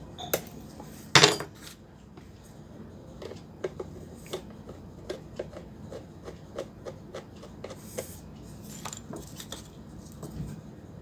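Hand screwdriver working at rusted, stuck screws on a stainless steel electric kettle: a loud metallic clatter about a second in, then a run of small irregular metal clicks and scrapes.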